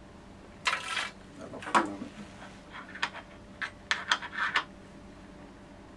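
Short scraping and rubbing handling noises on a workbench, then several quick scrapes of a plastic mixing stick in a small metal tin of mixed two-part epoxy, about four seconds in.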